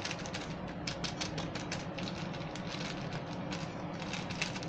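Metal spoon beating eggs and curry powder in a ceramic bowl, clicking rapidly and unevenly against the bowl's sides.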